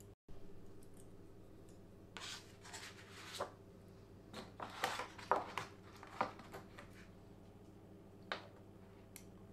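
Darkroom tongs dipping a photographic print in and out of developer and fixer trays: a string of faint, short splashes and scrapes at irregular intervals, over a low steady hum.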